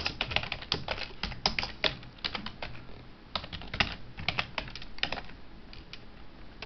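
Computer keyboard typing: irregular runs of quick key clicks with short pauses, as code is entered.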